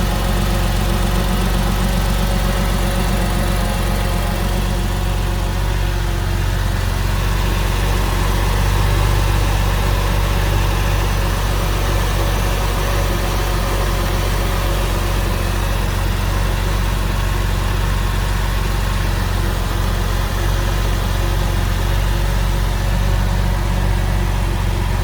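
Porsche 996's M96 flat-six engine idling steadily, still warming up after a cold start.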